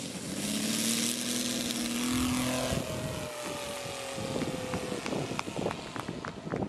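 Saito FG-60R3 three-cylinder radial petrol engine of a giant-scale RC Zero running at speed with the propeller. It grows louder while its pitch rises, then fades with the pitch sliding down, as a passing model plane does. Short clicks come near the end.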